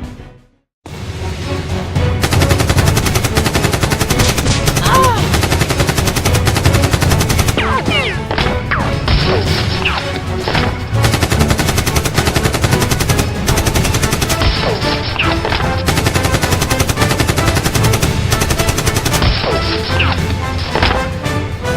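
Rapid automatic gunfire sound effects in long continuous volleys, starting about a second in after a brief silence.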